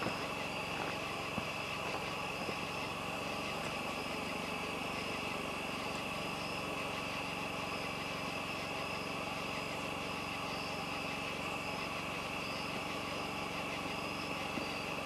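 Night insects, crickets or katydids, chirring in a steady chorus over a steady low engine hum.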